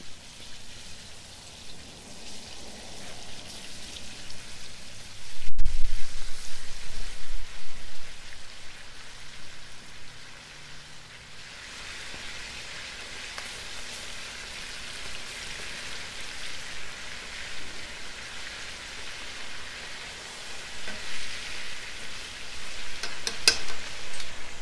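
Floured chicken pieces deep-frying in hot oil in a vintage cast-iron #8 Mystery Pot chicken fryer, a steady sizzle that grows louder about halfway through, with a few sharp pops near the end. A low thump about five seconds in.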